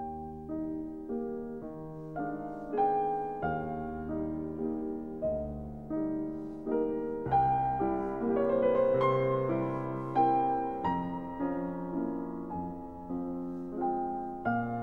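Piano music: a slow, gentle piece of struck notes and chords, each note fading after it is played.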